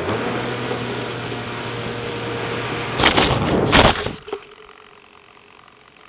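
Onboard audio of an Easy Star RC plane's electric motor and propeller running with wind rush as it flies low, then two loud hits about three and four seconds in as it crashes into snow, after which the motor sound cuts off.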